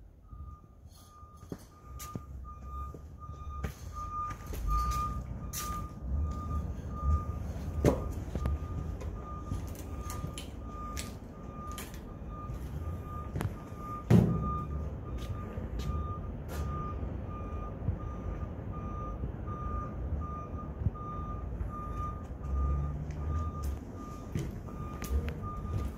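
A vehicle's reversing alarm beeping steadily at one pitch over a low engine rumble, with scattered knocks and a loud thump about 14 seconds in.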